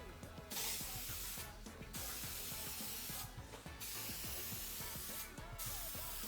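Aerosol can of White Knight Crystal Clear Acrylic spraying a clear top coat onto a sanded plastic headlight lens, in repeated hissing passes about a second and a half long with short breaks between them.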